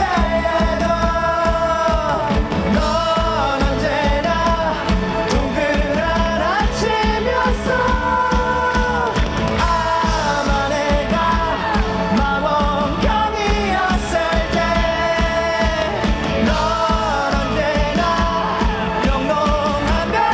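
Live rock band performance: a male singer's voice over electric guitar and drums, played through a loud PA.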